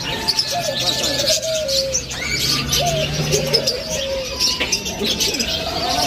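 Caged pigeons cooing again and again over a dense chatter of small birds chirping. A low steady hum runs underneath and stops about three and a half seconds in.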